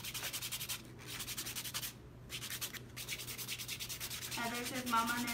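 A fingernail being buffed with an abrasive nail buffer in rapid back-and-forth strokes, with short pauses about one and two seconds in.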